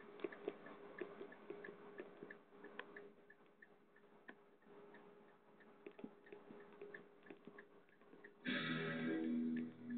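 Faint scattered clicks and small knocks of vultures pecking and tearing at carrion, over a regular short high chirp repeating about two or three times a second. About eight and a half seconds in, a louder, steady sound with several pitched tones starts and carries on to the end.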